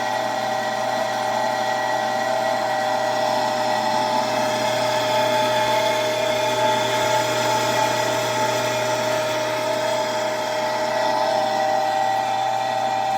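COWSAR countertop nugget ice maker running while it makes ice: a steady motor whine with a low hum under it.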